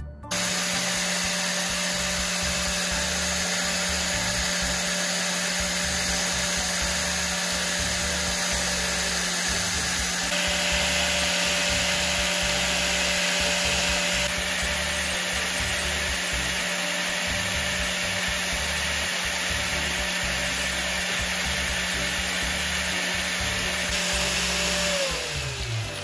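DCA angle grinder fitted with a sanding disc, running steadily at full speed. A drill bit's tip is ground against the disc for a few seconds partway through, adding a harsher hiss. Near the end the motor is switched off and winds down, its pitch falling.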